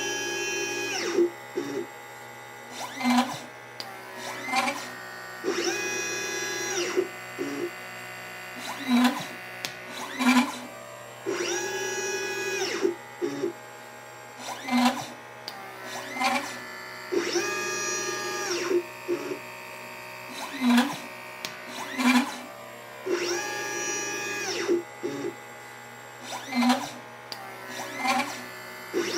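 LitePlacer pick-and-place machine's stepper motors whining as the head travels back and forth, in a repeating placement cycle of about one long move every six seconds with short buzzes of smaller moves between, placing capacitors and resistors.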